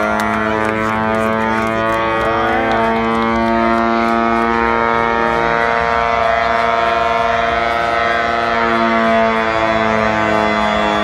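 Air raid siren sounding a loud, steady held tone with only a slight waver in pitch.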